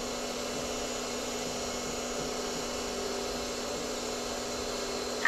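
Steady hum and hiss of a running machine in the shop, with a single sharp click at the very end.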